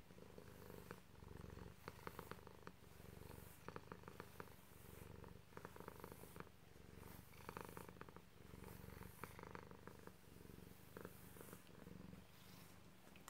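Himalayan cat purring steadily, the low rumble breaking and resuming with each breath every second or two. Soft clicking bristles of a brush stroking through its long fur run over the purr.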